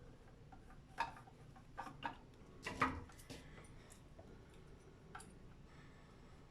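Light clicks and taps of plastic toilet-tank parts being handled while a tube is worked onto its fitting, about half a dozen scattered over a few seconds, the sharpest a little before the middle.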